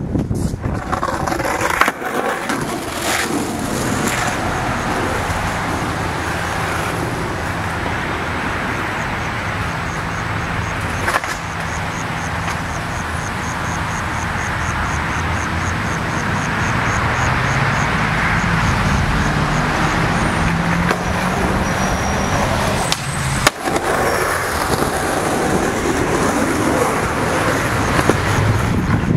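Skateboard wheels rolling on pavement, a steady continuous rumble, with one sharp clack late on.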